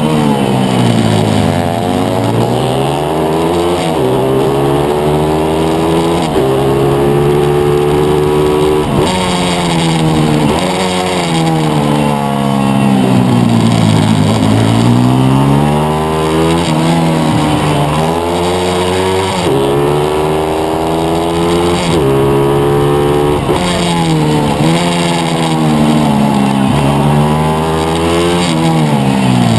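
Single-cylinder four-stroke pit bike engine at racing speed, heard from onboard. The revs climb and drop again and again as the rider changes gear, brakes for corners and accelerates out.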